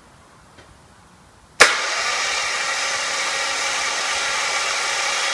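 Diesel starter motor from a 2008 Citroën Xsara Picasso 1.6 HDi, off the car and powered by jump leads, switched on with a sharp click about one and a half seconds in and then spinning freely with a steady whirr. Its current trace shows eleven peaks where there should be twelve, which the mechanic takes for a bad starter motor.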